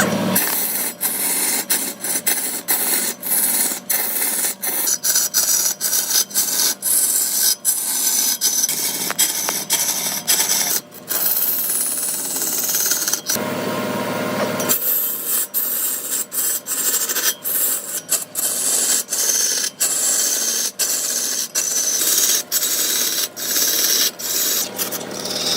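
Wood being abraded: a steady rasping, rubbing noise broken by many short breaks, with a change in the sound for about a second and a half near the middle.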